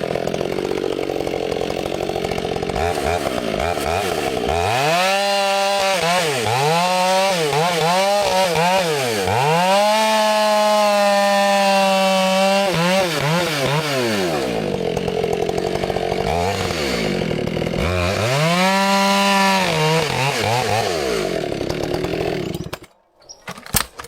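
Chainsaw running and cutting wood, its engine revved up and down several times and held at full throttle through the cut. It cuts off suddenly near the end.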